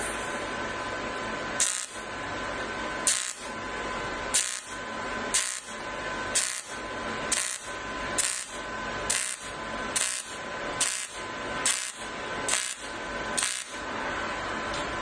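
AC TIG welder striking a run of quick spot tacks: about thirteen short, sharp arc bursts, roughly one a second, over a steady high whine.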